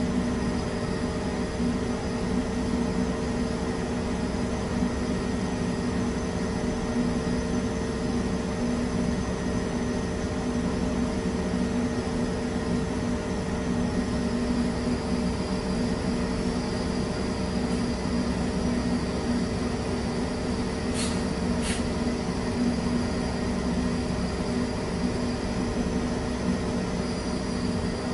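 Steady machine hum and air hiss of the running fire-test apparatus and its extraction. Two brief ticks come about three-quarters of the way through.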